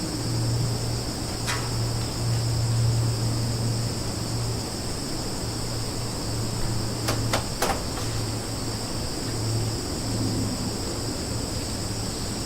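Summer forest ambience: a steady, unbroken chorus of insects in a high register over a low steady rumble. A few short sharp clicks break through, one early and three in quick succession about seven seconds in.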